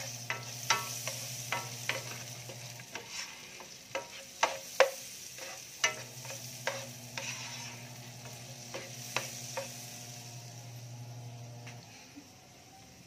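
Sliced onions sizzling in oil in a frying pan while a plastic spatula stirs them, knocking and scraping against the pan many times. The stirring knocks thin out after about ten seconds. A steady low hum runs underneath.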